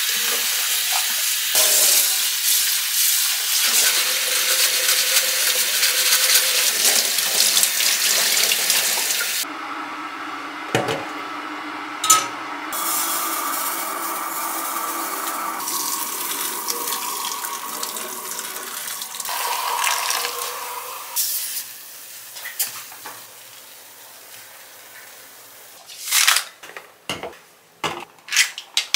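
Kitchen tap running hard into a stainless steel sink while dishes are rinsed, then, from about nine seconds in, water running more quietly into a glass bowl with a steady ringing pitch. Near the end there are a few sharp knocks of plastic bottles being set down on the countertop.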